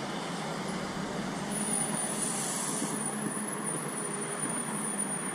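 Steady outdoor background noise with a low rumble and hiss, like distant road traffic, with a faint high-pitched tone coming in about a second and a half in.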